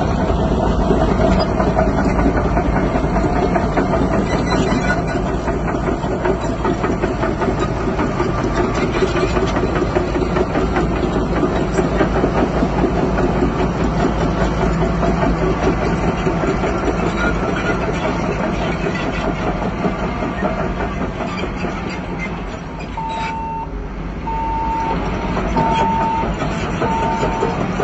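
Bulldozer's diesel engine running steadily. About 23 s in, a reversing alarm starts beeping about once a second.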